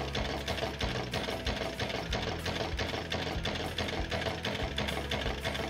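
Bourbouze-type electromagnetic motor running: a fast, even mechanical clatter as its contacts make and break and the coil armatures pull in turn, over a low steady hum.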